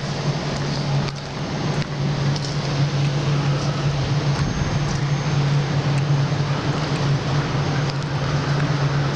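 A car driving along a street: a steady low engine and road hum with an even rush of wind and tyre noise.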